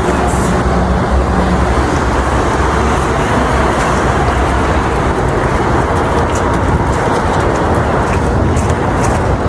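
Steady road traffic: vehicle engines running with a low hum, and a steadier engine tone that fades out about a second and a half in.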